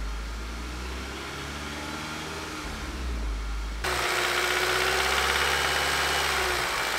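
Volkswagen EA888 2.0 TSI turbocharged four-cylinder engine running at about 2000 rpm with a light knocking rattle, which the owner takes for big-end bearing knock. It is muffled at first, heard from the driver's seat, then suddenly louder and brighter about four seconds in, heard from the open engine bay.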